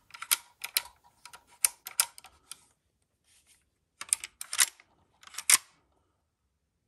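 Metal clicking and scraping of an early 6H2 AK-47 bayonet's muzzle ring and hilt against an AK's barrel and front sight block as it is worked onto the rifle, which it fits only with difficulty. A quick run of light clicks, a pause, then a few louder knocks near the end.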